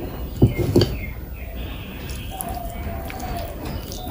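Wet, squishy eating sounds of curry close to the microphone, with two loud low knocks about half a second in, then fainter wet clicks.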